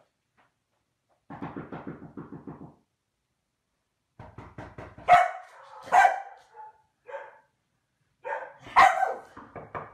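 A Komondor gives a low grumble, then barks over and over, the loudest barks about a second apart.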